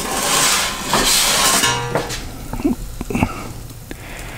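Metal pizza peel scraping across the oven's pizza stone, a loud hiss lasting about two seconds, followed by a few light clicks as it settles.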